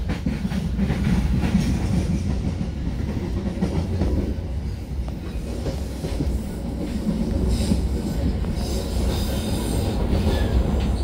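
Passenger train running, heard from inside the carriage: a steady low rumble of the wheels on the rails, with a brighter, higher hiss joining in the second half.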